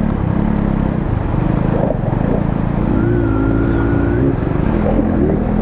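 Motorcycle engines running, with a higher note that rises and then holds for about a second in the middle.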